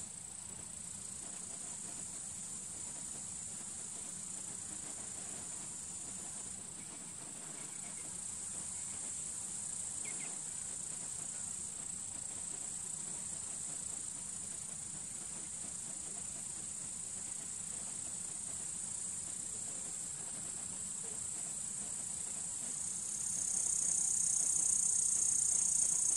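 Outdoor insect chorus: a steady, high-pitched chirring that goes on without a break and grows louder about 23 seconds in.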